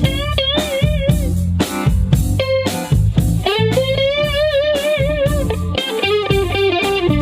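Electric guitar playing a blues lead over bass and drums, with two long held notes that waver in vibrato.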